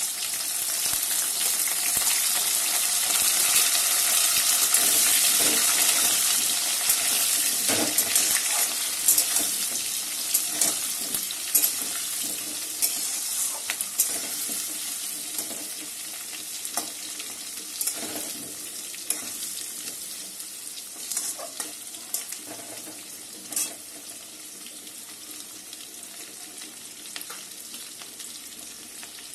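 Chopped garlic and green chilli frying in hot oil with small potatoes in a metal kadai. The sizzle swells over the first few seconds, then slowly dies down, while a metal spatula scrapes and clicks against the pan now and then.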